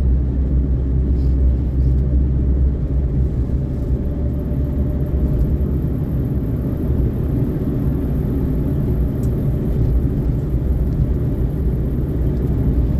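Cabin noise of a Suzuki Karimun Kotak on the move: a steady low rumble of engine and road.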